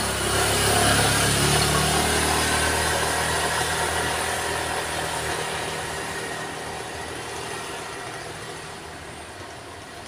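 Motor vehicle engine going by close and then receding along the road, loudest about a second in and fading away over the following seconds.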